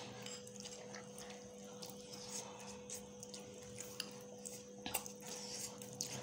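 Children eating noodles: soft slurping and a few light clicks of a spoon against a ceramic bowl, over a faint steady hum.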